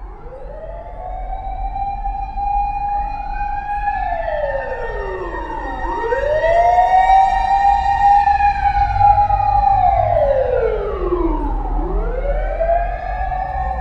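Siren wailing in slow cycles: each wail rises over a second or two, holds, then glides down, about every six seconds, over a low rumble.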